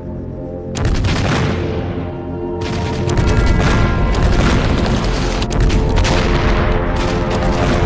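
Explosions of thrown stick grenades: a heavy blast about a second in, then more blasts with dense crackling, over a dramatic orchestral score.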